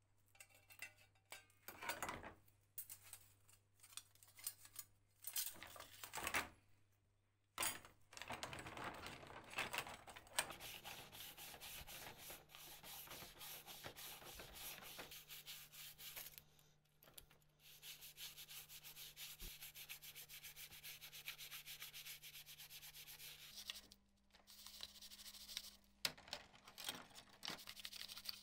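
A scrub brush scrubbing galvanized steel carpet-sweeper plates in soapy water, a steady fast scratchy scrubbing with short pauses. For the first several seconds there are only scattered knocks and scrapes as the metal parts are handled in the tray.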